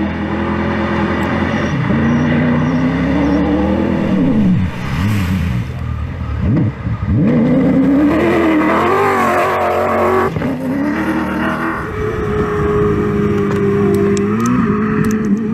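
Toyota Hilux rally trucks driven flat out, engines revving hard, the pitch climbing through each gear and falling at every shift. The engine note plunges twice, about five and six and a half seconds in, as a truck goes past.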